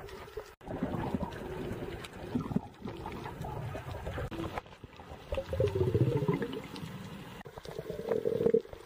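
Underwater water noise heard through a submerged camera: muffled sloshing and bubbling with scattered clicks.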